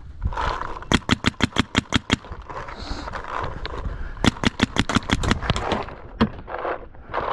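Paintball marker, a Tippmann Stryker, firing two rapid strings of shots at about eight a second: the first starts about a second in, the second a little past the four-second mark.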